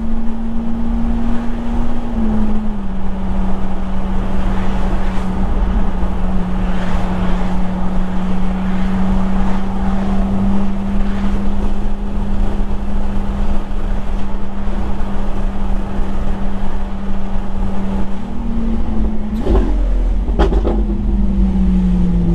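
Vehicle engine droning steadily over low road rumble while driving. Its pitch dips slightly a couple of seconds in, rises briefly near the end and falls again, with a couple of short knocks near the end.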